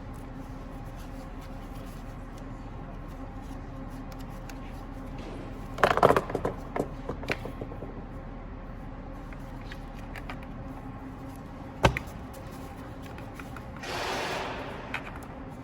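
Knocks and clicks of BMW blower motor parts being handled and fitted: a quick cluster of knocks about six seconds in, one sharp click near twelve seconds, and a short scrape near the end, over a steady background hum.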